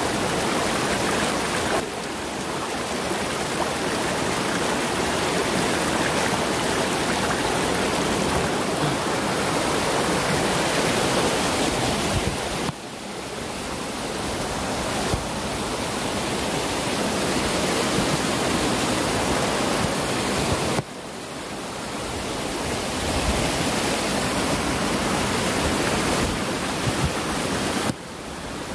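Shallow river water rushing and splashing over rocks and small cascades, a steady noise that drops suddenly and swells back up about four times.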